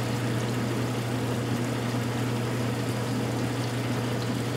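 Wilton horizontal bandsaw running and cutting through bar stock under slow power feed, with coolant flowing over the blade: a steady motor hum under an even hiss of the cut and the coolant.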